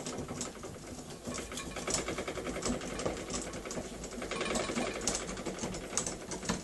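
Small Märklin 4097 model steam engine unit running fast on steam from a homemade boiler, a rapid, even clatter of strokes, with a brief rush of hiss about four seconds in.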